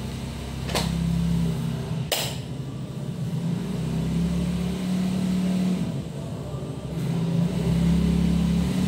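Engines of passing road traffic running, swelling and fading as vehicles go by. Two sharp clicks come about one and two seconds in.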